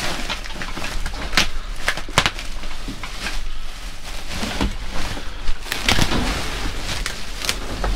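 Trash being rummaged through by hand: rustling of papers and bags, with scattered knocks and clatters as items are moved.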